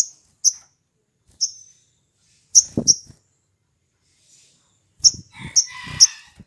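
Male olive-backed sunbird giving a string of sharp, high chirps, about eight, at irregular intervals. Low thuds and a short rattle come with the later chirps as the bird moves about its wire cage.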